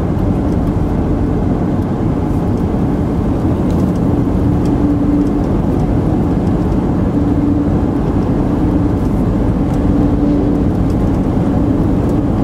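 Steady engine and road noise of a car being driven, with a hum that swells and fades several times.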